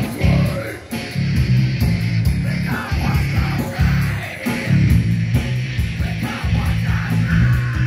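Loud live heavy rock band: distorted electric guitars, bass and drums playing in a stop-start rhythm with short breaks, and a vocalist yelling into the microphone.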